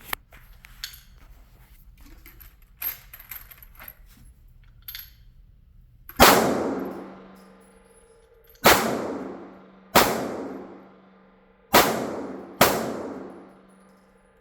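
Five gunshots at a shooting range, spaced one to two and a half seconds apart, each followed by a long echoing tail. Before them come small clicks of a pistol magazine being handled and loaded.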